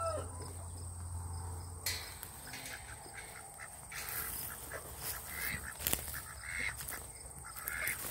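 Domestic ducks quacking in short calls now and then. A rooster's crow trails off at the very start, and two sharp clicks come about two seconds and six seconds in.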